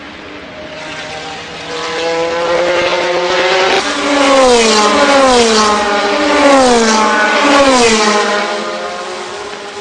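A pack of GT race cars, Ferrari F430 GT2s among them, running at speed. The engines grow louder for the first few seconds, then four cars go by one after another, each engine note dropping in pitch as it passes, before the sound fades away.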